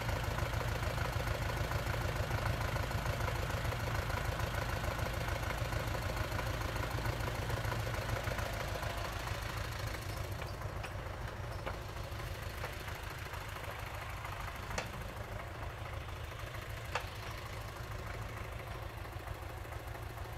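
Jumz excavator's engine running steadily, slowly getting quieter, with two short sharp clicks near the end.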